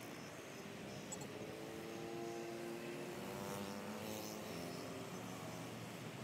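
Road traffic noise: a steady rumble of passing cars and motorbikes, with one vehicle's engine hum standing out for a few seconds in the middle.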